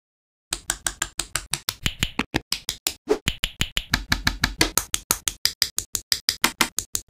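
Hard plastic LEGO Technic bricks clicking into place in quick succession, about six sharp clicks a second, one for each piece added in the stop-motion build.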